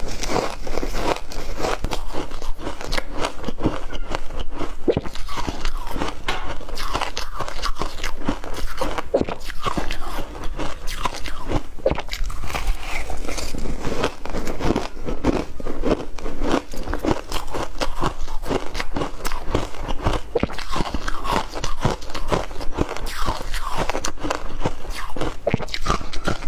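A person biting and chewing crunchy shaved ice, with many crunches in quick succession and no real pause.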